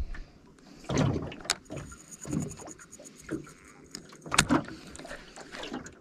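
Small-ripple water slapping against the hull of a drifting boat, with irregular knocks and slaps, the loudest a little after four seconds in.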